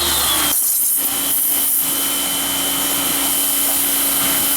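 Pressure washer running: a loud steady hiss of the water jet over an even machine hum. About half a second in, the low rumble drops away and the hum settles at a slightly lower pitch.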